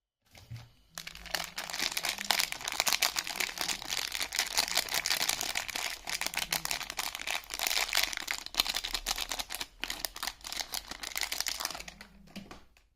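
Crinkling of a soap bar's wrapping as it is unwrapped by hand, a dense continuous crackle that starts about a second in and stops near the end.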